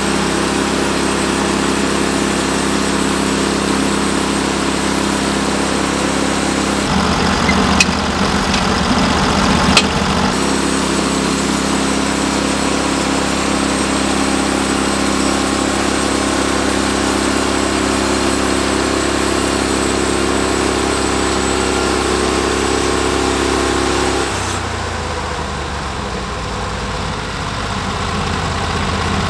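Norwood LumberPro HD36 portable band sawmill running steadily as its gas engine drives the band blade through a log. Two sharp clicks come between about eight and ten seconds in. About 24 seconds in the sound drops and eases as the blade comes out of the cut.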